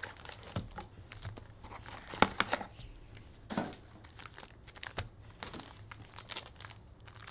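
Foil-wrapped trading card packs crinkling as a stack of them is pulled out of a cardboard box and set down, with scattered sharp crackles, the loudest about two seconds in.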